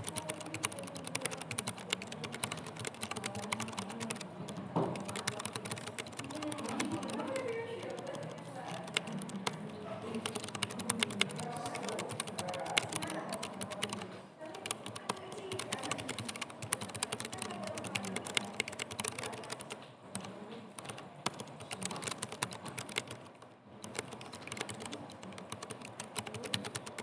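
Typing on a Keychron K3 low-profile mechanical keyboard: a rapid, continuous patter of key clicks, with a few brief pauses.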